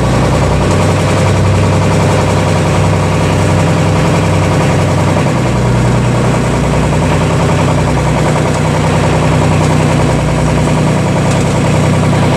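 Engine of a motorised outrigger fishing boat running steadily while the boat is under way, a constant low drone that holds the same pitch throughout.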